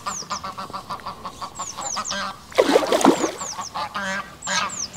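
Birds calling: honking waterfowl, loudest about halfway through, with short falling chirps from small birds higher up.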